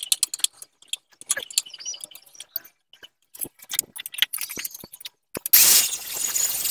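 Light metallic clicks and clinks of tools and parts being handled, then about five and a half seconds in an angle grinder switches on abruptly and runs loudly with a high whine.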